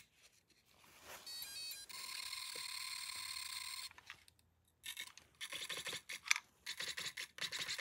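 RC steering servo and radio gear powering up: a quick run of electronic beeps about a second in, then a steady electric buzzing whine for about two seconds, then a string of short whirring bursts as the servo moves.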